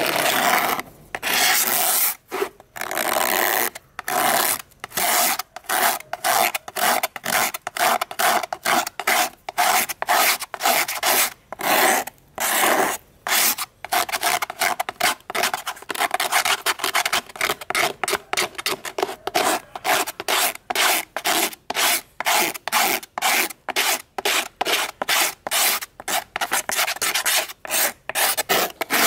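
Rhythmic rubbing strokes of an abrasive worked by hand on a fan part, about two strokes a second and quickening to about three a second in the second half.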